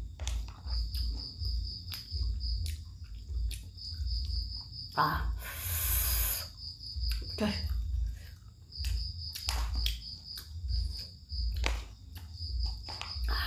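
Close-miked mukbang eating of wontons: chewing thumps, lip smacks and mouth clicks, with a long slurp about five seconds in. A steady, evenly pulsing high chirp runs underneath.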